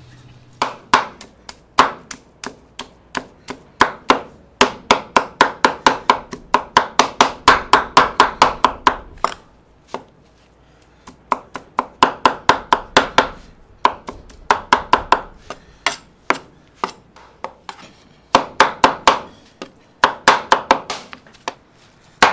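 Meat cleaver chopping tender cooked brisket on a wooden cutting board, in fast runs of sharp strikes, about five a second, with short pauses between the runs.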